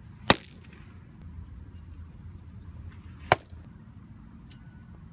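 Two sharp pops of pitched baseballs smacking into a catcher's leather mitt, about three seconds apart, the pitches being changeups.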